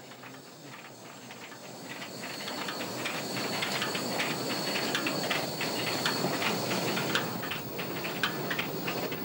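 Saxon-Meyer 0-4-4-0 compound articulated narrow-gauge steam locomotive moving slowly, with steam hissing and many small clanks from its running gear, growing louder over the first few seconds.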